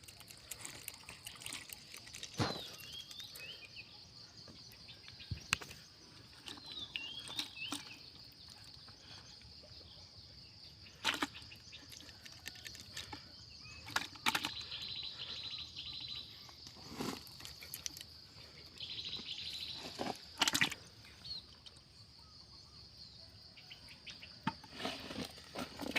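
Outdoor rural ambience: a steady high-pitched insect drone with a few short bird chirps, and brief knocks and rustles here and there.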